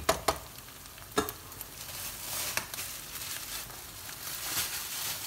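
Ground spice paste sizzling in hot oil in a nonstick wok. There are three sharp knocks of the spatula on the pan in the first second or so, and the sizzle grows louder after about two seconds. The paste has been sautéed until fragrant and is ready for the meat.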